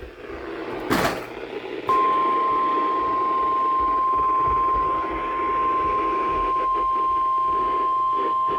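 NOAA Weather Radio's 1050 Hz warning alert tone: one steady, single-pitched tone that comes on about two seconds in and holds, over a hiss of radio static, after a sharp click about a second in. The tone signals that a warning message is about to be broadcast.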